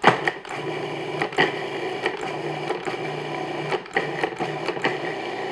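Food processor motor switching on and running steadily, its blade spinning digestive biscuit crumbs with melted butter to make a crumb crust mixture.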